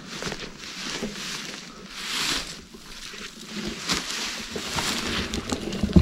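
Fir branches rustling and brushing as they are pushed aside by hand, with a few sharp cracks, the loudest near the end.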